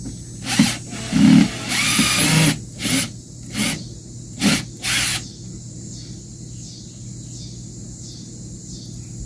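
Power drill run in short bursts, about six in the first five seconds with one longer run among them, then it stops.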